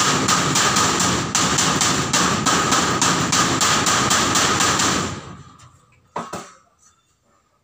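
Aluminium window frame being pounded into place overhead, a quick run of blows at about five a second with a ringing metallic tone. The pounding stops about five seconds in, followed by one lighter knock.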